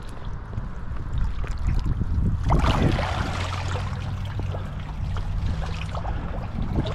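Water splashing and sloshing as a hand reaches into shallow water from a kayak, with a louder splash about two and a half seconds in.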